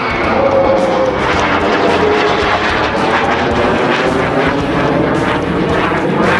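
Loud jet engine noise from a jet aircraft flying past, with a whine that falls in pitch over the first two seconds as it goes by.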